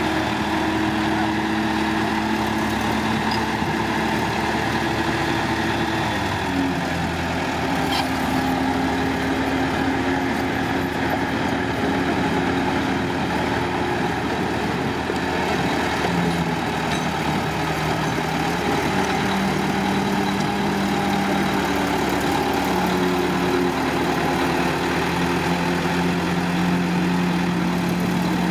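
Heavy diesel engines of earthmoving machinery running steadily, with the engine note stepping to a new pitch about six seconds in and again around sixteen seconds in.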